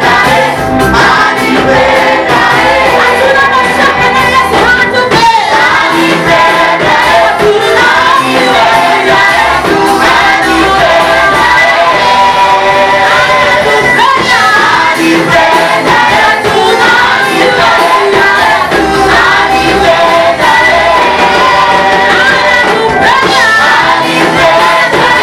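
A group of singers performing a gospel praise song, with female voices prominent, over a steady instrumental accompaniment.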